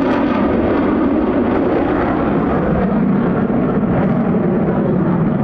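Loud, steady jet noise from an F-35A Lightning II's single F135 afterburning turbofan in flight, deep and even throughout.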